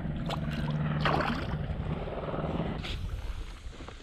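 Splashing at the side of a kayak as a small black drum is let go at the surface, over a steady low hum that stops about three seconds in.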